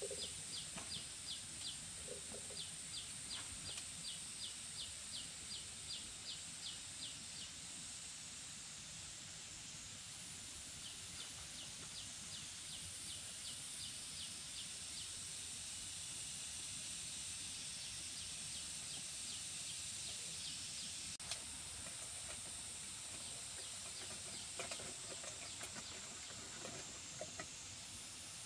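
Rural outdoor ambience: a steady high hiss with runs of quick chirps, about three a second, that stop and start again.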